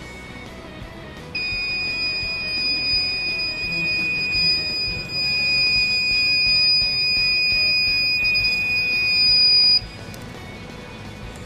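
Warning buzzer of an ultrasonic distance-measuring circuit sounding one continuous high-pitched tone for about eight seconds, then cutting off suddenly. It signals that an obstacle is closer than 30 cm to the sensor.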